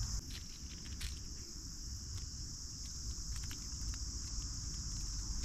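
Steady high insect chorus, with scattered faint small clicks from a treble hook being swapped on a crankbait's split ring with pliers.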